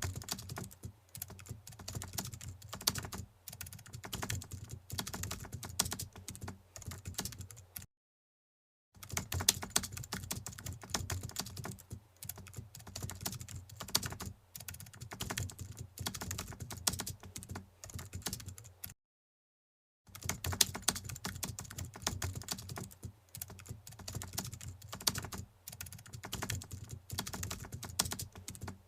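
Rapid computer-keyboard typing, a dense run of clicks broken by two short complete silences about 8 and 19 seconds in.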